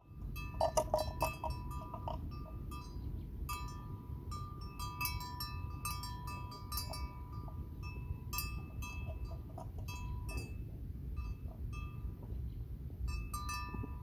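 Small metal bell clinking and ringing irregularly, over a steady low rumble.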